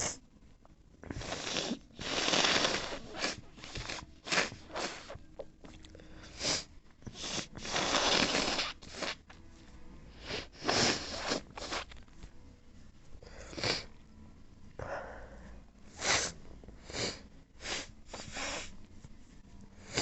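A person sneezing and sniffling: a string of short breathy nasal bursts, with two longer breathy ones about two and eight seconds in.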